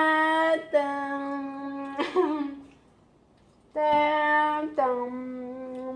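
A voice singing long, steady held notes: a pair of notes, a short wavering slide, then two more held notes after a short pause.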